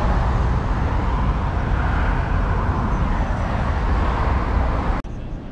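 City street traffic: cars driving past, a steady rumble of engines and tyres on the road. It drops off suddenly about five seconds in.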